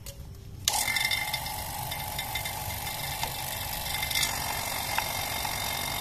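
Refrigeration vacuum pump switching on about a second in, then running steadily with a high whine as it pulls a vacuum on the refrigerator's refrigerant lines.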